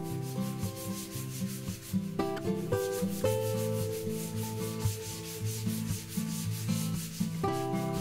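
A kitchen sponge rubbing back and forth over a wooden tabletop in quick, even strokes, working unbleached beeswax and perilla-oil wax into the wood.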